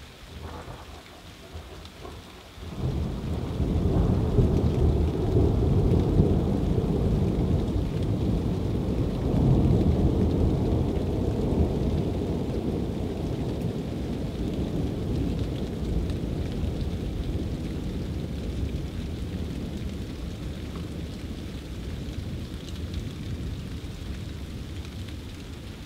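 Thunder over steady rain: a loud rumble breaks in about three seconds in, swells twice and then slowly rolls away.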